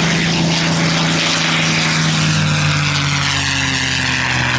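North American P-51 Mustang's Packard Merlin V-12 at climb power on a low pass, its engine note dropping in pitch about halfway through as it goes by.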